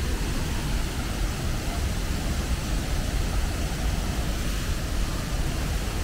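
A waterfall rushing steadily into its plunge pool: an even, unbroken noise with a heavy low rumble.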